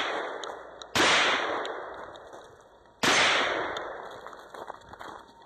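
Two gunshots about two seconds apart, each followed by a long echoing decay; the tail of an earlier shot is still fading as the sound begins.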